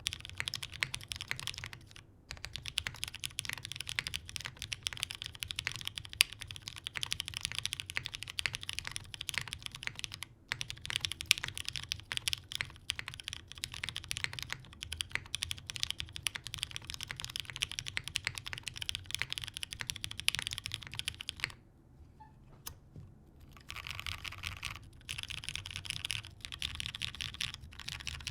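Mechanical keyboard being typed on: a TGR 910 RE with Cherry MX Brown switches lubed with 205g0, filmed, on a polycarbonate plate, with GMK keycaps, giving a fast run of keystroke clacks. About three-quarters through the typing stops for about two seconds, then starts again as rapid key spamming.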